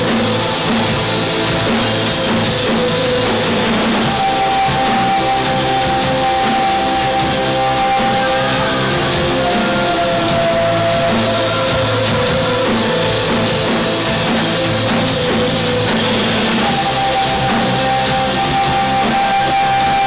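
Live rock band playing loudly, with a drum kit and electric guitars and long held notes ringing over the band.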